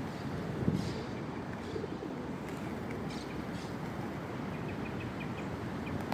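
Birds calling at a feeding spot: short high chirps, with a quick run of them near the end, over a steady background hiss.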